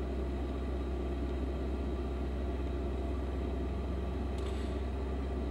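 Car engine held steady at about 2000 rpm, heard from inside the cabin. The engine is not yet fully warmed up.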